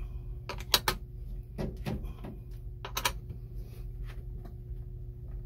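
A wrench clicking and knocking against a battery terminal nut as the cable is tightened back on: a handful of short, irregular metal clicks, the loudest about three-quarters of a second in and another about three seconds in, over a low steady hum.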